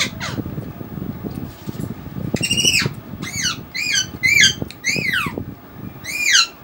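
A bird gives about seven short, harsh calls in a loose series, each rising then falling in pitch. Underneath are the soft wet clicks and squelches of rice being mixed by hand and chewed.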